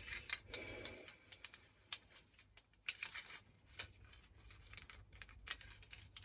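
Faint, irregular clicks and taps of small metal and plastic parts being handled, with a short scrape about half a second in: a lawnmower recoil starter's coil spring being worked back into its housing by hand.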